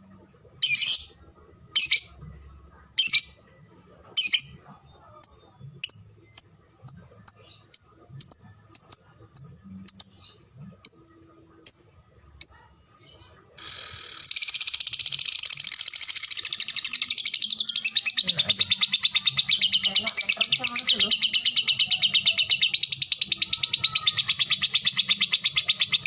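Lovebird singing: single sharp chirps about a second apart that quicken to about two a second (the 'ngetik' ticking), then, about 14 seconds in, one long unbroken rapid chatter (the 'ngekek') lasting about twelve seconds.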